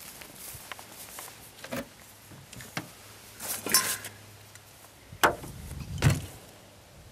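Handling noises: a few scattered knocks and clicks, a short clattering rattle about halfway through, and two sharp knocks near the end.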